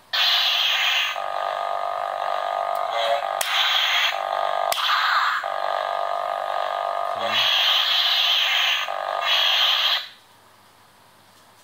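Lightsaber sound card playing through the speaker in the hilt's pommel: a loud electronic hum that starts suddenly, carries two sharp clicks midway, and cuts off about ten seconds in.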